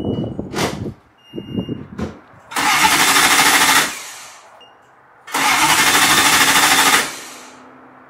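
Nissan S14 being cranked on the starter in two bursts of about one and a half seconds each, turning over but not firing; the owners then trace the no-start to the fuel pump circuit.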